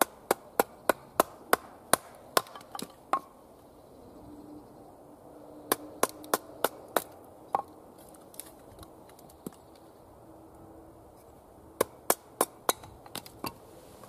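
Wooden baton striking the spine of a knife to split kindling on a wooden chopping block: sharp wooden knocks about three a second, in three runs with pauses between.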